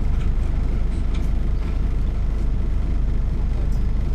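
MAN NL 202 city bus's diesel engine idling steadily at standstill, heard from inside the rear of the passenger cabin as an even, pulsing low rumble, with a few faint clicks and rattles.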